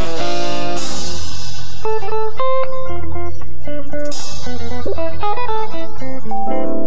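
Live instrumental jazz band, with electric guitar playing a line of short, quick notes over electric bass, drums and keyboards. Cymbal crashes come about a second in and again about four seconds in, and a chord is held near the end.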